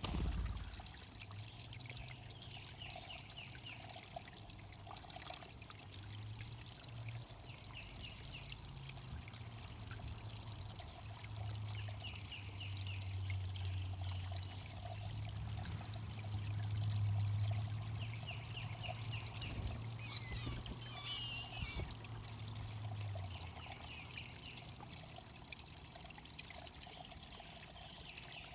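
Water trickling steadily into a backyard bird pond. A bird repeats a short song phrase every couple of seconds, and a low hum swells and fades through the middle.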